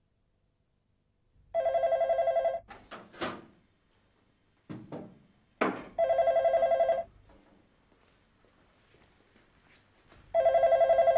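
Landline telephone ringing three times, each ring about a second long with a fast warble. A few short knocks are heard between the rings.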